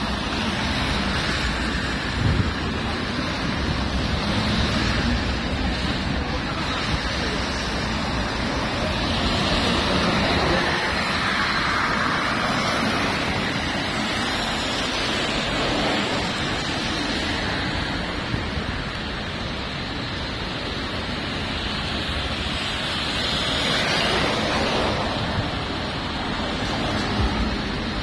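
Busy city street in the rain: steady hiss of car and bus tyres on wet pavement, swelling as a city bus drives past partway through, with wind buffeting the microphone.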